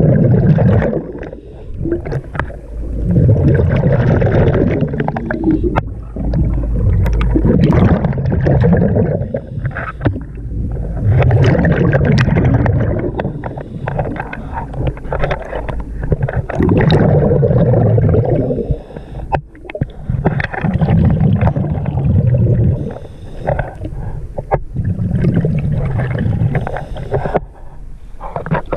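A diver's breathing heard underwater through a regulator. Exhaled bubbles rumble and gurgle in loud surges about every four to five seconds, with quieter inhalations and small clicks between them.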